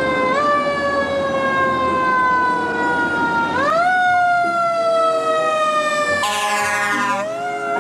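Fire truck siren wailing: the pitch climbs quickly, then slides down slowly, about twice. About three-quarters through, a higher, faster-wavering tone briefly joins it.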